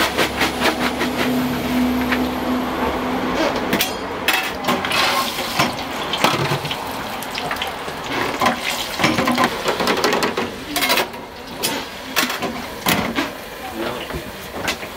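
Chicken nuggets frying in a deep fryer's hot oil, a steady bubbling hiss, with scattered clicks and knocks from handling at the counter.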